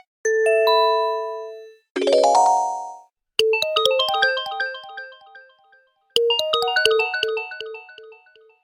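Cubot X6 smartphone's stock alert tones playing one after another. First come two short synthesized chimes, each sharp-edged and fading out. Then a quick bright jingle of a dozen or so keyboard-like notes plays twice in a row.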